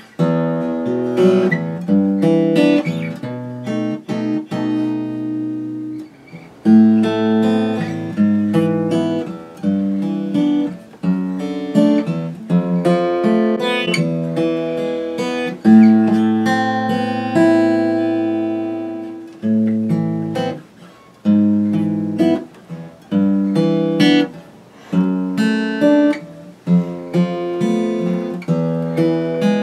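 Martin D-41 rosewood dreadnought acoustic guitar being played: a flowing run of picked and strummed chords with ringing notes and a few brief pauses between phrases. The guitar is freshly restored and set up with a compensated nut and saddle.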